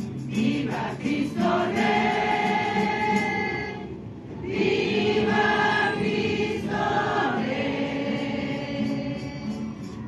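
A group of voices singing a hymn together in long held notes, with a short break for breath about four seconds in.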